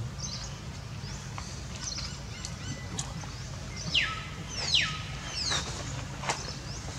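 High-pitched animal calls: faint chirps, then two loud, sharp calls about four and five seconds in, each falling quickly in pitch, with a shorter high falling call just after. A steady low hum runs underneath.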